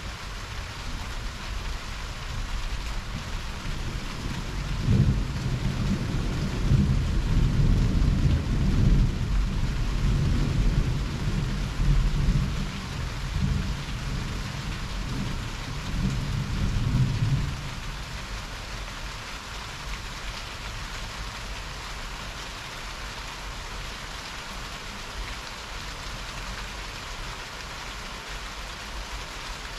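Heavy rain falling steadily, with a long roll of thunder that starts about five seconds in and rumbles for roughly twelve seconds before dying away, leaving only the rain.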